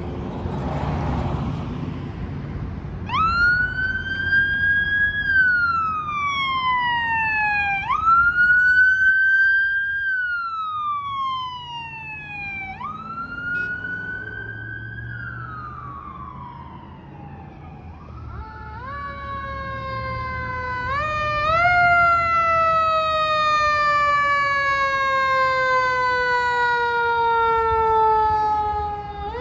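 Fire apparatus sirens on a call: first a wail cycling up and down about every five seconds as the battalion vehicle passes. Then the fire engine's siren steps up in pitch several times and falls slowly over several seconds, over the low rumble of traffic and engines.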